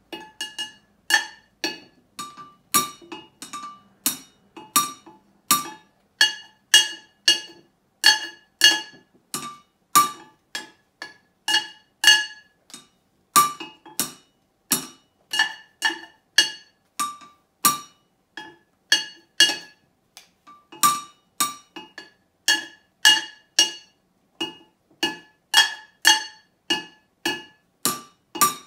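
Wooden drumsticks beating a steady rhythm on two upturned metal cooking pots, about two to three strokes a second. Each stroke is a short ringing clank, and the two pots give two different notes.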